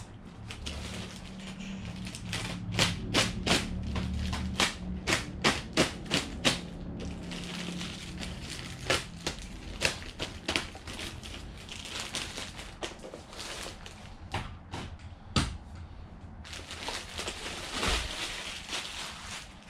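A small box being opened and its contents handled by hand: a quick run of sharp clicks and taps, with packaging rustling and crinkling in two stretches, about eight seconds in and again near the end.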